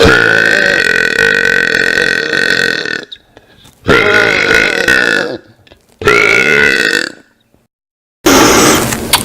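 A man burping loudly: four long belches in a row, the first about three seconds long, with short gaps between them and a brief silence before the last one.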